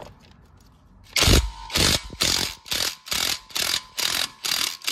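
Cordless impact wrench hammering on a sway bar end-link nut in short trigger bursts, about two a second, starting about a second in.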